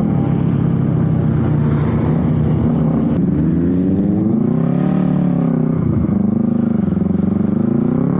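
Motorcycle engine running while riding, its revs climbing and easing off about halfway through and again near the end, under a steady rush of wind and road noise.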